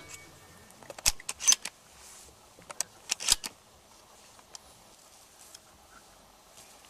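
Sharp metallic clicks of a shotgun being handled: a few clicks about a second in, then a tighter cluster around three seconds in.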